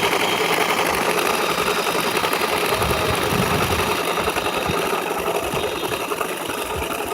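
Battery-powered toy chainsaw running its motor and engine noise, a steady mechanical rattle that eases slightly about five seconds in.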